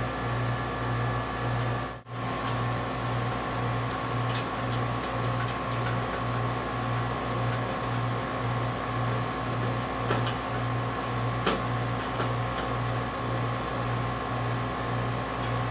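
A steady low machine hum, pulsing about twice a second, with a thin steady tone above it and a few faint clicks. The sound cuts out for a moment about two seconds in.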